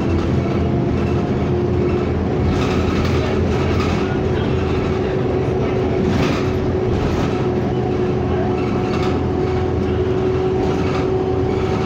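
Inside a moving CTA city bus: the engine and drivetrain run with a steady whine that rises a little in pitch at first, while the body and windows give short rattles and knocks over bumps.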